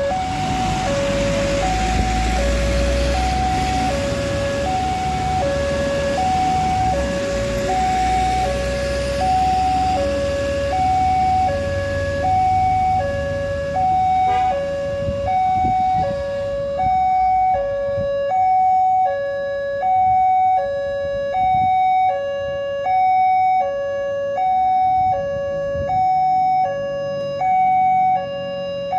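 Railway level-crossing warning alarm: an electronic two-tone signal alternating high and low, about one pair every one and a half seconds, sounding while the barriers close for an approaching train. Heavy truck engines and passing traffic run under it for the first half, with a single knock about halfway. After that the alarm sounds on its own.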